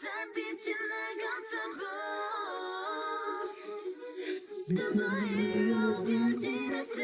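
K-pop girl group song with female vocals singing a melodic line, backed mostly by high parts at first; a deep low note comes in about five seconds in.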